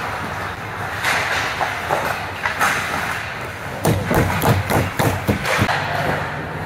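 Hockey sticks, puck and skates clattering in a scramble in front of the net: a quick run of sharp clacks and thuds lasting about two seconds, starting around four seconds in, over steady rink noise.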